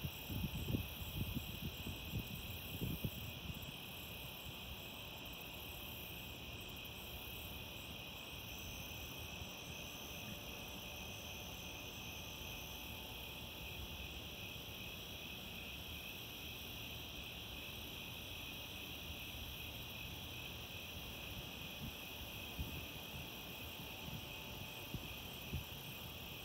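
Steady night chorus of crickets and other insects, a pulsing trill with a second, higher pulsed trill above it. A thin high whine joins for a few seconds about a third of the way in. Low bumps and rumbles come in the first few seconds and again briefly near the end.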